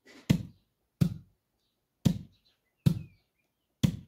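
Wheat being pounded by hand to hull it: five heavy, dull thuds in an uneven rhythm, about one a second.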